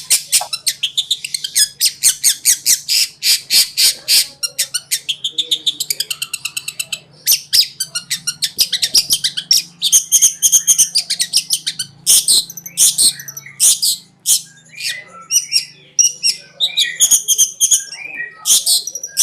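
Long-tailed shrike (cendet) singing a fast, nearly unbroken stream of sharp chattering notes, several a second, mixed with squawks and warbled phrases, broken only by brief pauses. A faint steady hum lies underneath.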